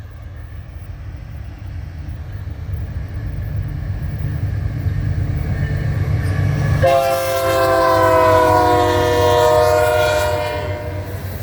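Diesel locomotive of a freight train drawing closer, its engine rumble steadily growing louder. About seven seconds in, the lead CN AC44C6M locomotive sounds a multi-note air horn for about four seconds, its chord sinking slightly in pitch as the locomotive passes.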